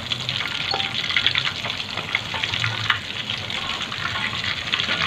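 Batter-coated giant prawns deep-frying in hot oil in a wok, a steady crackling sizzle, as the cooked prawns are lifted out with a metal spatula and wire strainer, which give a few sharp clicks.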